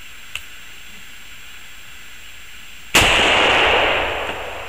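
A faint sharp crack about a third of a second in, then about three seconds in a rifle shot hits a burning aerosol spray paint can, which bursts into a fireball: a sudden loud bang followed by a rushing roar of flame that fades over about a second and a half.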